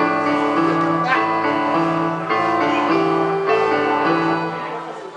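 Digital piano playing a steady pattern of sustained chords over a moving bass note, the chords changing about every second; the sound fades away near the end.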